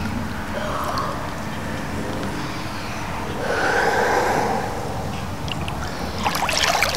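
A boy taking slow, deep breaths through cupped hands, two long breaths about three seconds apart: pre-breathing to load up on air before a freedive. Water splashes near the end as he pushes off into the pool.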